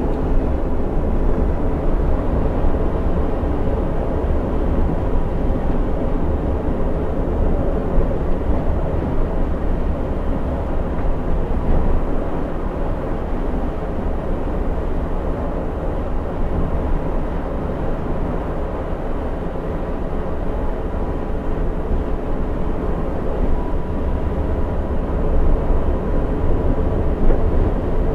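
Steady drone of a coach's diesel engine and tyre-on-road noise heard inside the driver's cab while cruising at about 90 km/h on the highway, with a faint steady whine over the low rumble.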